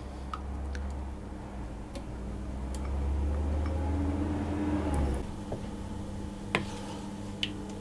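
Silicone spatula scraping soured cream out of a glass pot into a bowl of melted chocolate mixture, then stirring it through, over a low hum that stops about five seconds in. Two sharp clicks near the end, spatula or glass knocking on the bowl.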